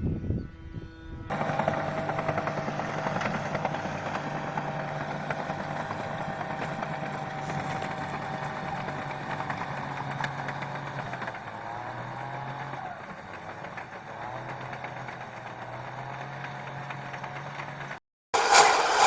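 A heavy machine's engine running steadily, its pitch wavering and dipping several times past the middle. A cut brings in a short, much louder burst of another sound near the end.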